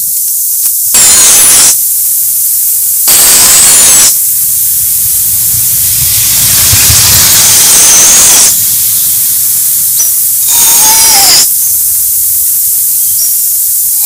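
Loud static-like hiss throughout, broken by four louder surges of noise: three of about a second each, and one slower swell of a couple of seconds in the middle.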